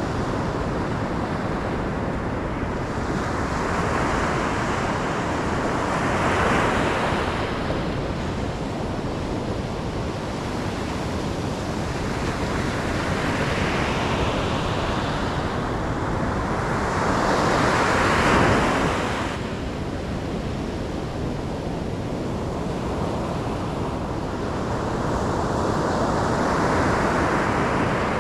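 Ocean surf: waves breaking in slow surges over a continuous wash, with three or four louder swells, the biggest about two-thirds of the way through, falling away sharply after it.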